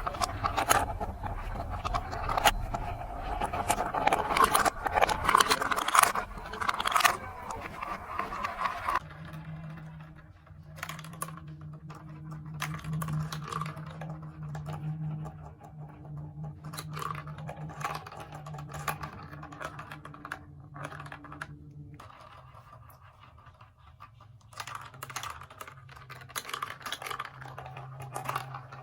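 Plastic marble-run building pieces clicking and clattering as they are handled. A dense rattle fills the first nine seconds, then come separate light clicks over a steady low hum.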